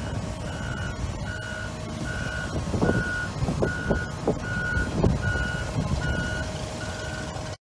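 Backup alarm beeping evenly, about four beeps every three seconds, over the steady running of the diesel engine of a tracked excavator lifting a tank. A few dull knocks come in the middle.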